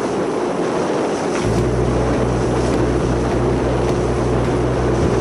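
A boat's engine running steadily under way, with wind and water noise; about a second and a half in, a deep low hum comes in and pulses in even steps.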